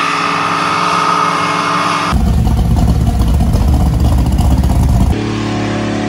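Pickup-truck engines revving hard during burnouts, heard as three abruptly cut clips. The loudest is a deep, heavy engine rumble from about two to five seconds in.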